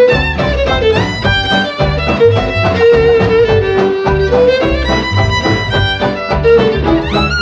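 Western swing band playing an instrumental break: a fiddle carries a sliding melody over a steady swing beat from the rhythm section.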